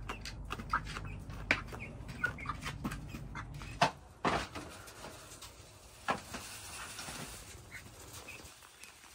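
Young Buff Orpington chickens, about two months old, giving short scattered peeping calls, mixed with sharp clicks and knocks. A low rumble runs under them and stops about four seconds in.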